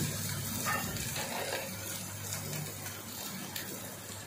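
Water poured in a thin stream into a pot of beef keema and tomato masala that is frying with a soft sizzle. The water goes in so the masala doesn't burn.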